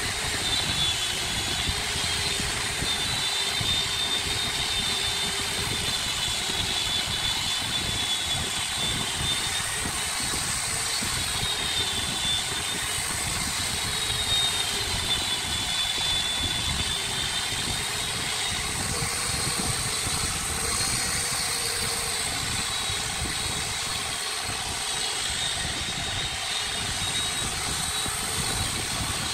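Electric angle grinder with a sanding disc running against a wooden vase turning on a lathe: a steady high whine that wavers slightly in pitch, over the hum and rumble of the lathe.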